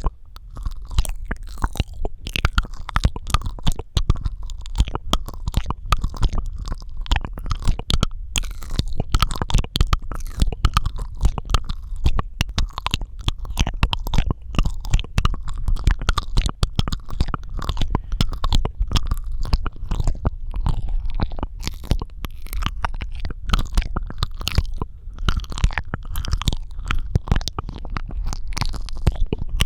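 Close-miked ASMR mouth sounds: a rapid, continuous run of wet clicks, smacks and squelches from the lips and tongue, over a steady low rumble.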